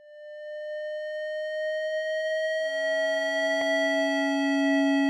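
A steady electronic tone fades in and creeps slowly upward in pitch. A second, lower tone joins it about two and a half seconds in, and there is a short click about a second later.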